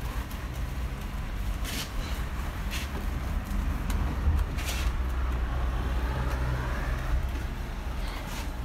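Wash mitts scrubbing a foam-covered car body, with a few short swishing wipes over a steady low rumble.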